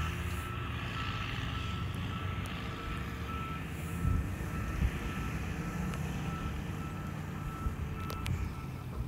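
A vehicle's reversing alarm beeping about twice a second over a low engine rumble, with a few louder low knocks partway through.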